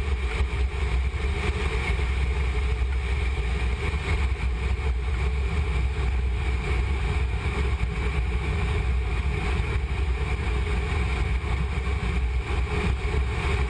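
Steady in-flight noise of a C-17 Globemaster III transport: the constant drone of its four turbofan engines and rushing air, with a deep rumble and a steady higher hum.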